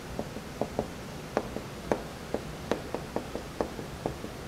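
Dry-erase marker tapping dots onto a whiteboard, a quick uneven series of light ticks, about three a second: electron dots being drawn around atoms.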